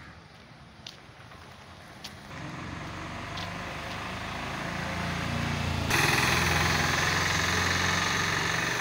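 A motor vehicle's engine running close by, getting steadily louder from about two seconds in, with a sudden rise of hissing noise just before six seconds.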